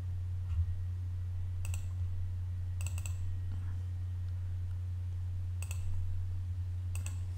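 Computer mouse clicking a handful of times, sharp single clicks with a close pair about three seconds in, as files are selected in a file dialog. A steady low electrical hum runs underneath.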